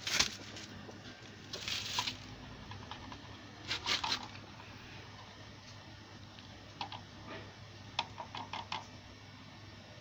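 Scattered light clicks and clatters of tools or small parts being handled, in short clusters, over a steady low hum.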